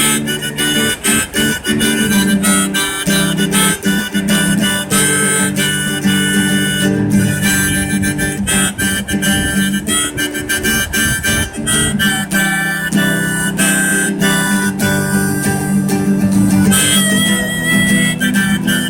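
Harmonica playing held and bending notes over a strummed acoustic guitar accompaniment, a steady rhythmic tune.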